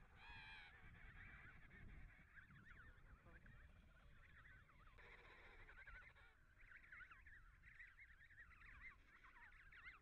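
Emperor penguin colony calling faintly: many short, wavering, high-pitched chick calls overlapping, with one louder call that has several stacked pitches just after the start.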